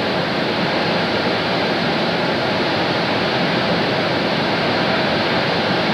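Steady, even hiss with no speech, tones or knocks: the background noise and tape hiss of an early-1980s home video recording of a quiet room.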